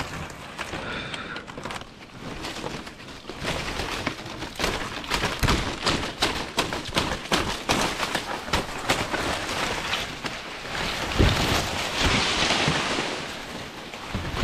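Palm fronds and leaves rustling and crackling, with scrapes and small knocks, as a wild bees' honeycomb is cut from a branch with a knife. It is a dense crackle of many small clicks that gets busier about four seconds in.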